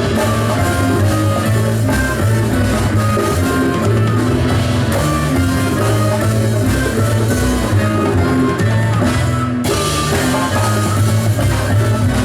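Live band music with drums, a repeating bass line and a melody of short notes.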